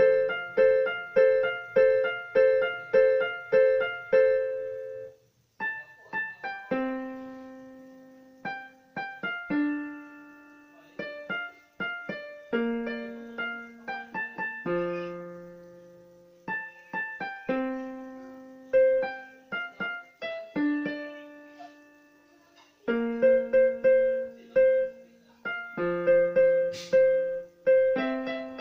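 Casio Casiotone portable keyboard on its piano voice, played by hand: a simple tune of separate notes, with a lower note sounding under some of them. It opens with a quick run of repeated notes, about two a second, then goes on in slower notes with short pauses between phrases.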